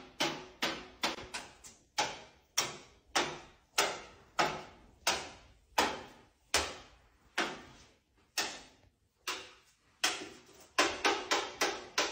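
A series of sharp knocks, each ringing briefly. They come about twice a second, slow to about one a second, then come quickly several in a row near the end.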